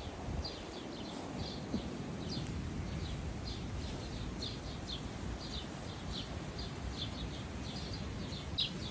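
A small bird chirping over and over, short high chirps two or three a second without a break, over a steady low background rumble.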